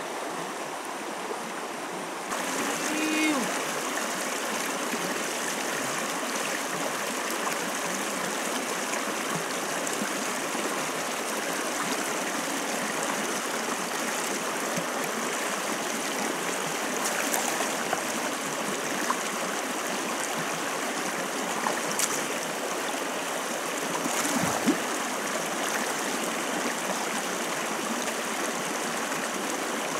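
Shallow stream rushing and splashing over rocks in a small cascade, a steady even rush of water that grows louder about two seconds in. A few faint brief knocks sound over it.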